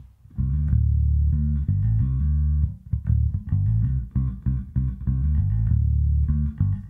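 Sadowsky electric bass played through a Little Walter PB60 60-watt tube bass head into a single-12-inch JR112 cabinet. The bass line starts about half a second in and mixes held notes with runs of short, clipped notes.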